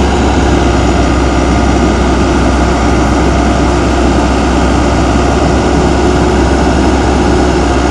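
Rebuilt diesel engine of a Case 9010B excavator running at a steady speed, loud and close, with a deep unchanging hum.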